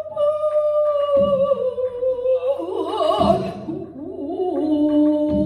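A pansori singer holds a long sung note with a wide wavering vibrato, then slides down to a lower held note. A buk barrel drum thuds low about every two seconds beneath the voice.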